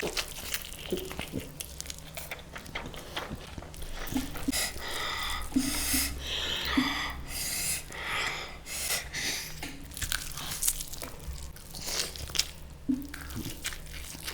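A person eating close to the microphone: irregular crunching bites and chewing, heaviest in the middle of the stretch.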